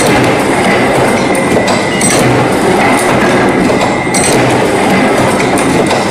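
Automatic chain-making machine running, a loud, steady mechanical clatter with sharp metallic clicks now and then as its tools bend wire into links.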